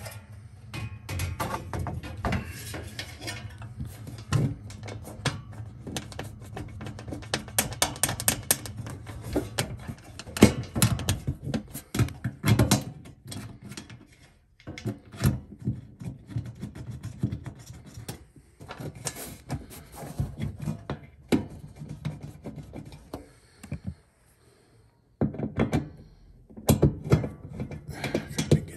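Sheet-metal access covers of a gas furnace being handled and fitted back on: irregular knocks and clunks with scraping and rubbing between them, and a couple of short pauses.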